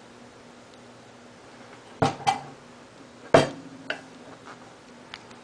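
The base of an old Eskimo model 10103 electric fan knocking down onto a wooden desk: a quick double knock about two seconds in and a louder single knock a little over a second later, followed by a few light clicks as it is handled.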